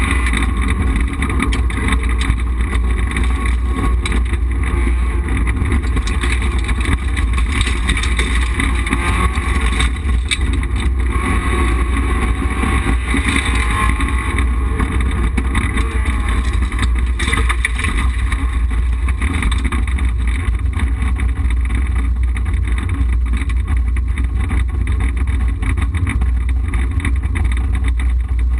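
Rally car engine running hard at speed, revs rising and falling, heard from inside the cabin with a heavy low rumble of road and tyre noise.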